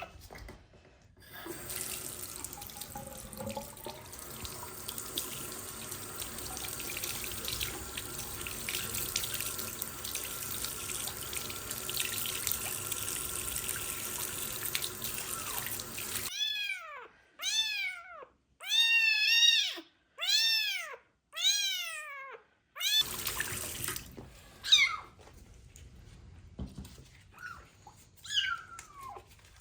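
Tap water running steadily for about fifteen seconds, then a kitten meowing loudly: about six arched meows in quick succession, followed by fainter, falling meows over the running water.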